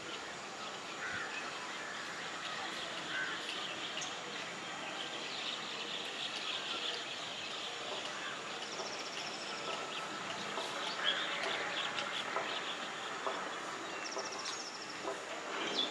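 Many birds chirping and calling over a steady haze of outdoor noise, with two short, fast, high trills partway through.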